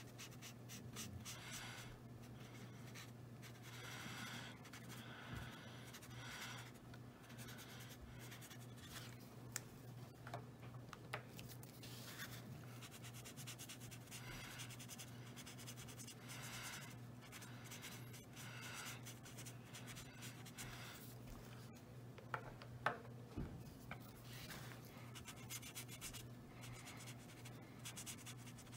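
Alcohol marker nibs rubbing across paper in short, repeated colouring strokes, faint. A few sharp clicks come about ten seconds in and again past twenty seconds.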